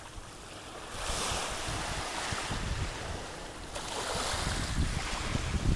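Small waves washing in along the shore and around a low jetty, swelling about a second in and again near four seconds. Wind rumbles on the microphone.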